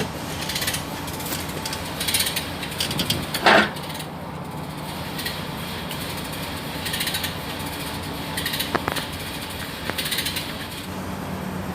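Short bursts of ratchet clicking repeating every second or so, with one sharp metallic clank about three and a half seconds in, over a steady low hum.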